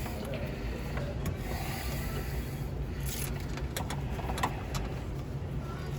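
Steady low background hum with a few faint rustles and clicks as bundled cables are handled.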